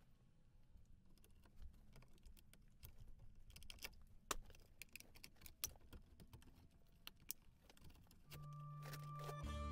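Faint, irregular clicks and taps of hands handling and fitting a plastic electrical box on a wooden stud. Background music fades in near the end.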